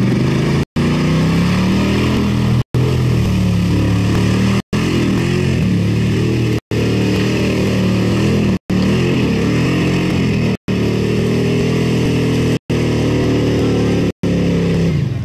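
Lifted pickup truck's engine revving hard under load as its spinning tyres churn through a mud bog pit, the pitch climbing and falling with the throttle. The audio cuts out for a split second about every two seconds.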